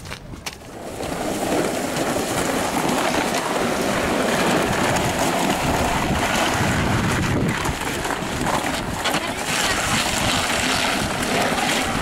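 Snow clearing: a small snowblower engine running steadily, with snow shovels scraping over the wet street. It comes up about a second in and stays loud.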